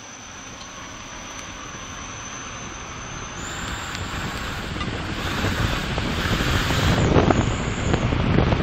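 Fiat Punto 1.2 8v four-cylinder car accelerating, its engine and rushing wind and road noise growing steadily louder. A thin high whistle, from an exhaust-mounted fake turbo whistler, runs over it and steps up in pitch about three seconds in.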